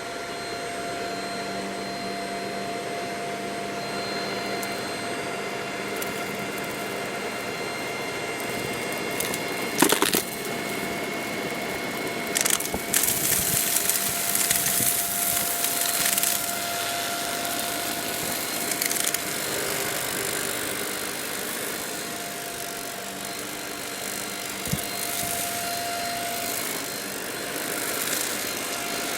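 Shark Rocket stick vacuum running steadily with a whining motor, broken by loud bursts of crackling as debris is sucked in, once about ten seconds in and again for a few seconds shortly after.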